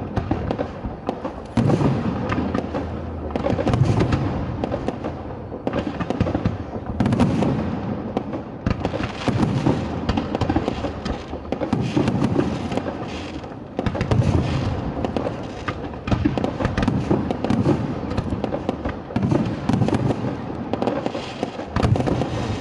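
Aerial fireworks display: shells bursting with deep booms every two seconds or so over continuous dense crackling.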